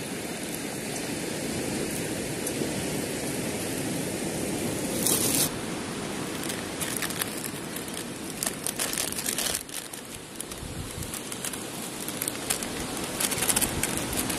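Plastic food sachets crinkling and tearing in the hands, short sharp crackles that come in clusters through the second half, over a steady hiss.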